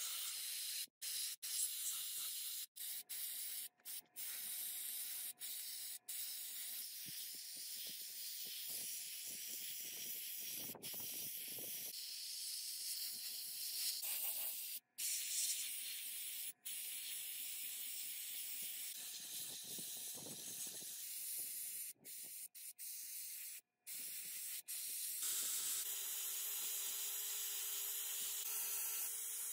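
Compressed-air spray gun with a siphon cup hissing as it sprays, stopping and starting several times. Near the end it gives way to a small angle grinder running steadily with a steady whine.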